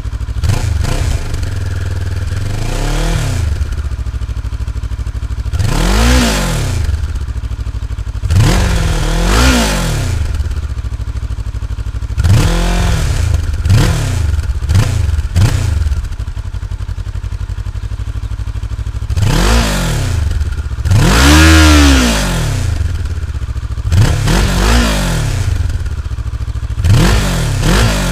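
Kawasaki ER-6n's 649 cc parallel-twin engine idling on the stand and being revved in repeated throttle blips, each rising and falling back to idle, through what looks like its original underbelly exhaust. The highest, loudest rev comes about two-thirds of the way through, and a run of quicker short blips comes near the end.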